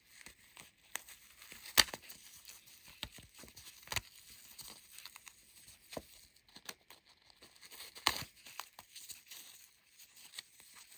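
Seam ripper picking out the stitches of a fabric knee-guard strap: a run of small snips and pops as the threads are cut, the sharpest about two seconds in, with fabric rustling between them.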